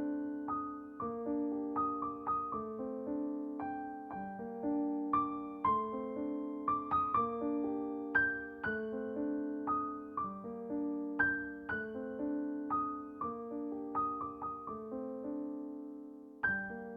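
Background music: a gentle solo piano piece, notes and chords struck and left to ring.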